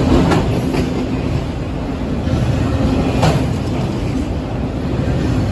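Freight train's multilevel autorack cars rolling past close by: a steady rumble of steel wheels on rail, with a few sharp wheel clicks, the loudest about three seconds in.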